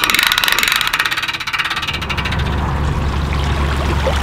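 A hand-cranked boat trailer winch ratcheting as the boat is wound up onto the trailer, a fast, even clicking. About two seconds in, a vehicle engine's low steady hum takes over as the loaded trailer is pulled up the ramp.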